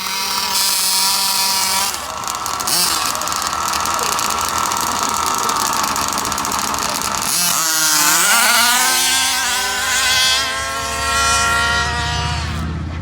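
Small two-stroke petrol engines of large-scale gas RC cars running at high revs. A little past halfway one engine's pitch dips sharply and then climbs as it revs up again.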